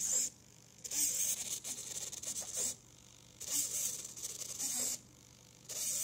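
Hobby servo driving a hand cutout into and out of a pin art display: four bursts of servo whirring mixed with the rasp of the pins sliding through their frame, the longest lasting nearly two seconds.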